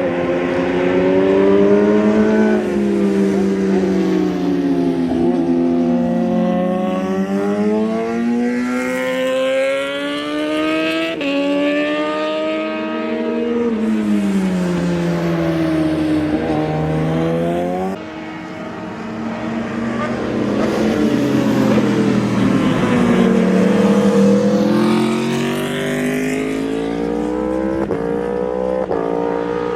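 Racing motorcycles of 600 to 1000 cc passing through a corner one after another, often overlapping: each engine's pitch falls as it brakes and downshifts, then rises as it accelerates out. The sound drops suddenly about two-thirds of the way in, then builds again as more bikes arrive.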